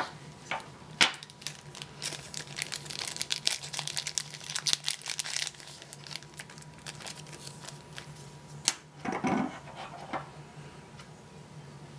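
Clear plastic zip bag crinkling and rustling as it is handled and opened, the crackle densest for a few seconds early on. A few sharp clicks and taps stand out, the loudest about a second in and near the end.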